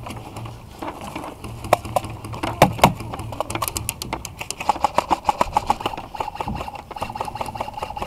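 Airsoft gunfire: sharp, irregular clicks and snaps, with a rapid rattling run of shots from about five seconds in to the end.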